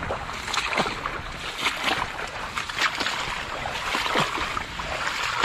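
Rustling and sloshing of feet pushing through dense water hyacinth in shallow water, a run of irregular crackles and splashes.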